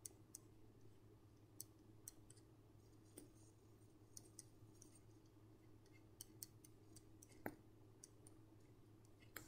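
Near silence with a steady low hum and scattered faint clicks of a pen tip touching down on paper while writing; one click about three-quarters of the way through is a little louder.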